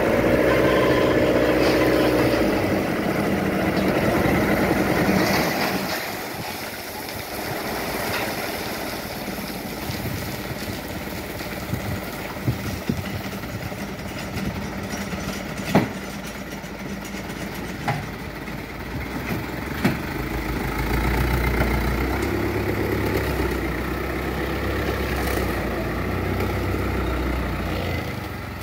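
An old dump truck's engine running hard for the first few seconds while the tipper bed is raised under a load that is slow to unload. It then settles to a lower, steadier running, with a few sharp knocks. From about two-thirds of the way in it runs deeper and heavier as the truck moves.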